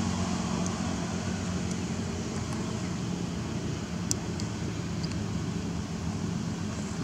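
Steady low mechanical rumble and hiss with a faint hum, with one faint click about four seconds in.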